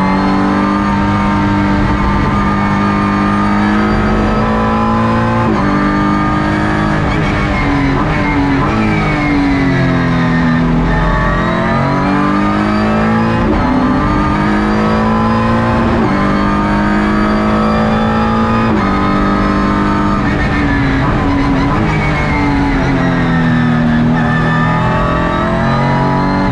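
Ligier JS2-R race car's Ford 3.7-litre V6 engine heard from inside the cockpit at racing speed. Its pitch climbs and steps abruptly through upshifts, then falls through downshifts into corners, several times over.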